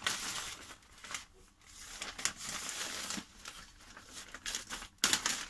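Parcel packaging rustling and crinkling in bursts as it is handled and opened, with a few sharp crackles near the end.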